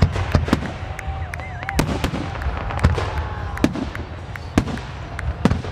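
Fireworks finale: aerial shells bursting in rapid, irregular succession, a few sharp bangs every second over a continuous low rumble.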